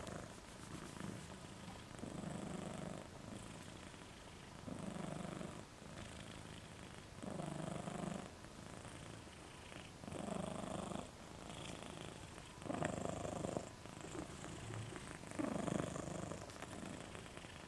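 A sleeping pet snoring, about one snore every two and a half seconds, with fainter breathing between.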